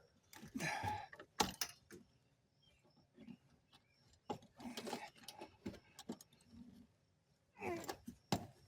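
Scattered clicks, knocks and scrapes of a 2-inch cam lock coupling being forced onto an IBC tote's bulkhead fitting, a tight fit because of the rubber gasket, with a few short mutters of effort between them.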